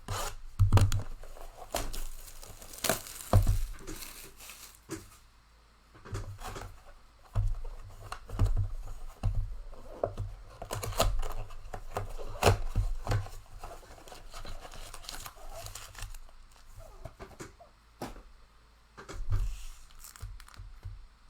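A trading-card mega box being opened by hand: packaging tearing and crinkling, with irregular clicks and thumps of cardboard and packs being handled.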